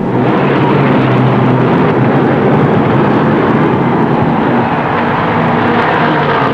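The field of Indianapolis roadsters with four-cylinder Meyer-Drake (Offenhauser) engines accelerating away at the start of the race: many engines running hard together in a loud, steady din.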